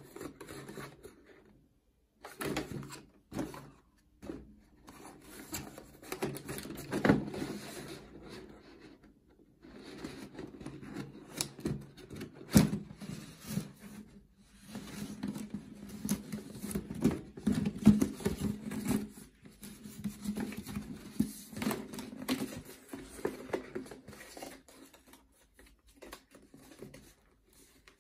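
Stiff paper being handled and creased by hand: irregular bursts of rustling with sharp clicks and taps, broken by a few short pauses.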